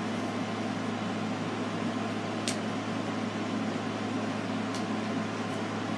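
Steady background hum and hiss, with two faint short ticks about two seconds apart.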